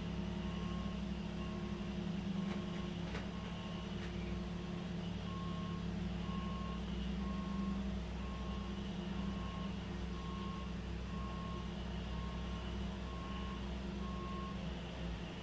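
A vehicle's reversing alarm beeps at about one beep a second over a steady low hum, stopping about a second before the end.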